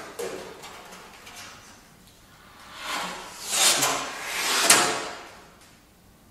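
Saxophone quartet (soprano, alto, tenor and baritone) playing unpitched air tones, breath rushing through the instruments with no clear notes, an extended technique. A few soft clicks come first, then the air noise swells up twice in the second half and fades away.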